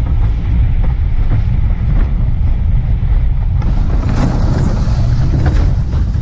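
Loud wind rumble on the microphone of a boat under way, with scattered knocks from about three and a half seconds in.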